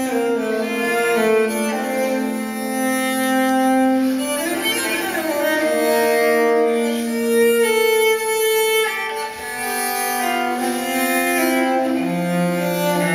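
Recorded string music, violin and cello with long held notes, played back through Infinity Alpha 30 loudspeakers.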